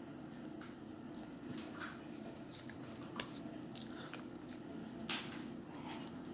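Quiet eating noises: a child chewing pancake, with scattered small mouth clicks and smacks, over a steady low hum.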